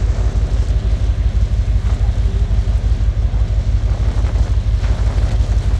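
Wind buffeting the microphone: a loud low rumble that flutters unevenly.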